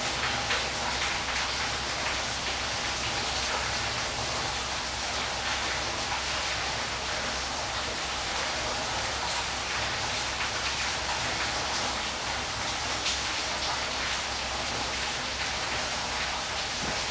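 Steady rush of falling water, a waterfall ambience: an even hiss with occasional faint splashes.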